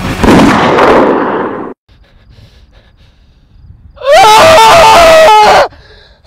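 A loud rough burst of noise lasting about a second and a half, then, after a quiet stretch, a man's loud wailing scream that steps between a few held pitches for about a second and a half. Another short cry starts right at the end.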